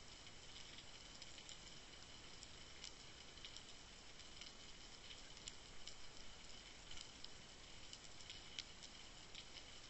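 Faint underwater hiss with scattered small clicks and crackles, picked up through the sealed housing of an underwater camera resting on the seabed.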